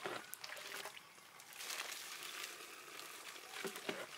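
Faint crackling hiss of hot water draining and dripping through freshly boiled rice in a plastic colander.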